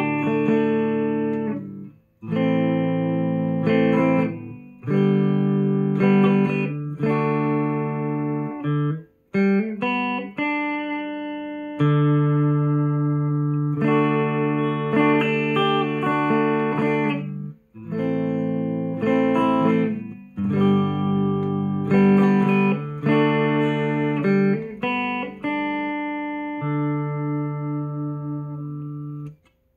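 Clean electric guitar playing ringing chords in phrases of a few seconds, with short breaks between them. The tone is shaped by an impulse response of a Jensen speaker in a Fender Deluxe Reverb, loaded in a Sonicake Sonic IR pedal and played through a full-range flat-response cabinet.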